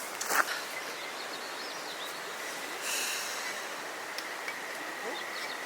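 Outdoor ambience: a steady hiss with a faint steady high tone and a few faint chirps, a knock just after the start and a brief rustle about three seconds in.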